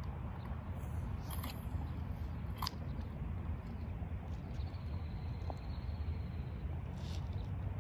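Steady low rumble of wind on the microphone, with a few faint clicks and crunches as a lure is reeled in on a spinning reel.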